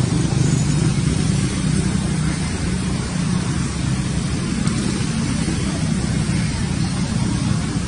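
A vehicle engine running steadily: a low, even drone with a noisy hiss over it.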